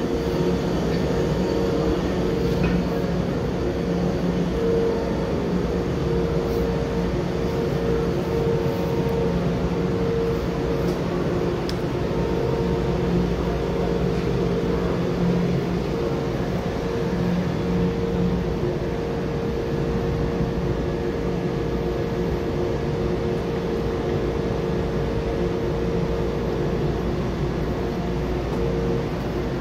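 Taiwan Railway EMU900 electric multiple unit standing at the platform with its doors open. Its onboard equipment gives a steady hum with a couple of steady tones.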